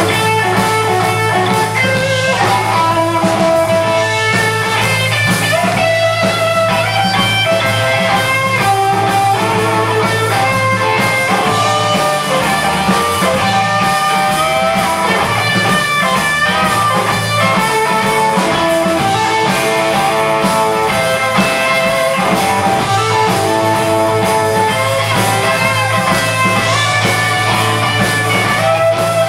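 Live rockabilly band playing: electric guitar lead lines over a steady bass line and drums.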